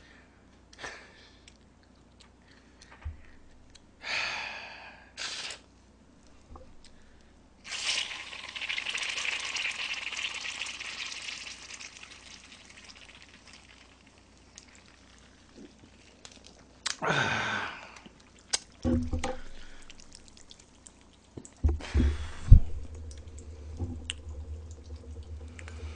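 Drinking from a plastic water bottle: a long stretch of pouring and gulping in the middle, with handling noises around it and a few sharp knocks near the end.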